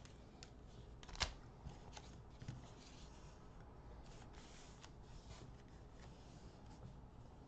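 Faint crinkling and rustling of cellophane-wrapped trading-card packs being handled and shuffled in the hand, with a sharper click about a second in.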